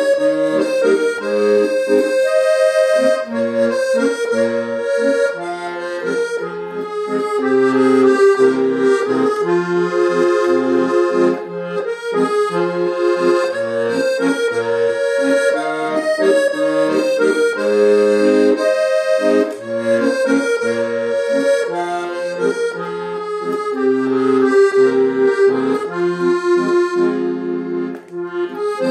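Accordion playing a song accompaniment alone, with melody and chords over a regular, repeating bass pattern.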